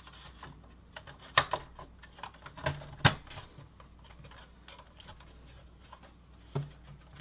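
Scattered sharp clicks and taps of hard plastic and metal parts being handled inside a desktop computer case as a video card is fitted into its slot, the loudest click about three seconds in.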